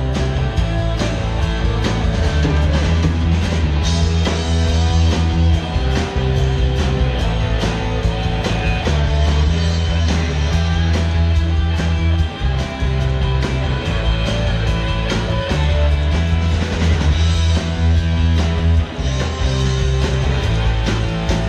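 Live rock band playing through a PA: electric guitars over strong bass notes and a steady drum beat.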